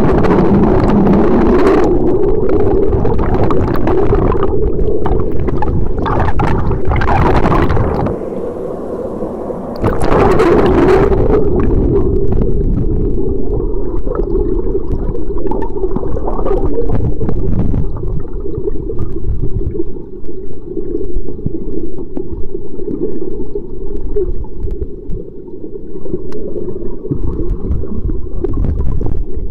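Waterfall's churning water heard underwater: a dense, muffled low rush with scattered bubbly crackles, dropping briefly about eight seconds in before returning.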